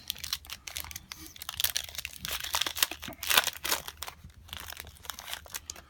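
Trading card pack wrapper crinkling and tearing as the pack is opened by hand: a dense run of quick crackles with a few louder rips.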